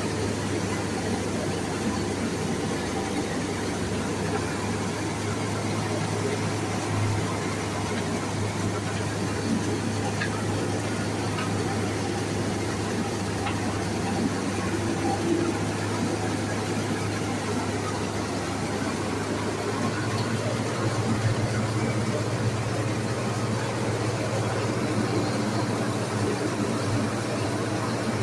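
Rice mill running steadily while milling palay, a constant machine drone with a strong low hum that shifts slightly higher about twenty seconds in.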